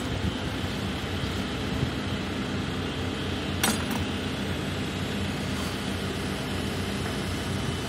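Telehandler's diesel engine idling steadily, with a single sharp knock about three and a half seconds in.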